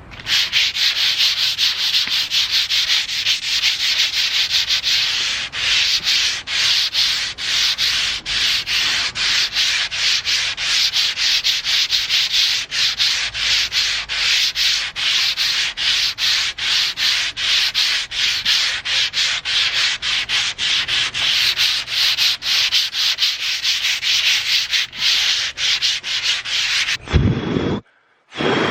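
Sandpaper rubbed over a car's painted body panel in quick back-and-forth strokes, about three a second, scuffing down the paint. Near the end the sanding stops with a short bump.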